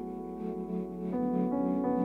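Slow ambient music played on a Yamaha electronic keyboard: sustained, ringing chords, with a new chord struck a little over a second in.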